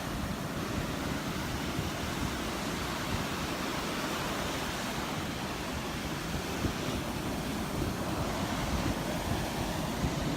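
Rough Gulf surf washing onto the beach, a steady rushing with no distinct breaks, with wind buffeting the microphone as a fluttering low rumble.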